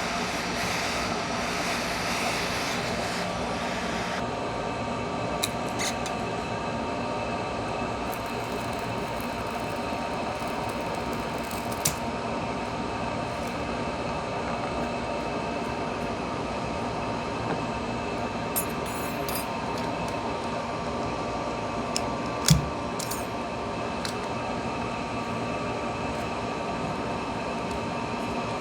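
Steady whir of a hot-air heat gun blowing while a phone's glued panel is heated and softened, its brighter hiss dropping away about four seconds in. A few light clicks and one sharper knock a little after twenty seconds.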